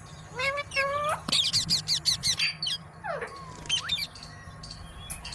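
Pet green parrot calling: a few rising whistled notes, then a quick run of sharp chirps, then a longer falling-and-rising whistle about three seconds in, with more short chirps near the end.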